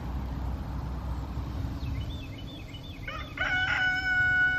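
A rooster crowing: a few short clucking notes about two seconds in, then one long crow that begins just past three seconds.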